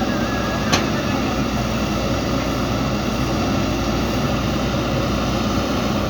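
Diesel engine of a JCB 3DX backhoe loader running steadily, with one sharp metallic clank under a second in.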